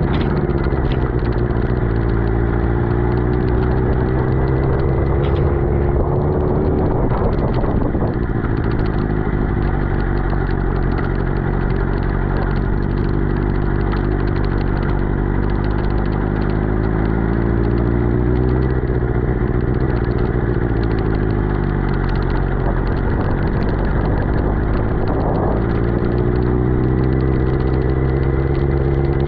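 Suzuki GSX-R600's inline-four engine running at low speed, its pitch easing down and picking up again a few times as the throttle is rolled off and on, over a steady hiss of wet road and wind.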